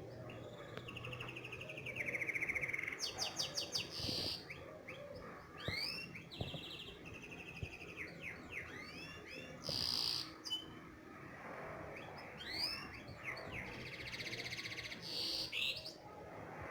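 Finch song in quick phrases: rapid trills, arching whistled notes that rise and fall, and short buzzy notes, with brief pauses between phrases.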